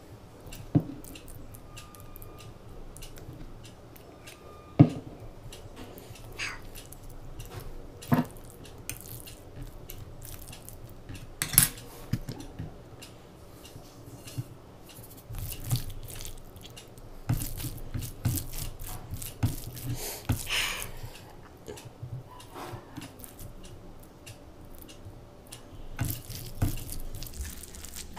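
A spoon clinks sharply against a plate a few times, several seconds apart. Then fingers mix soft, wet rice congee on the plate, making a run of small sticky clicks and squishes.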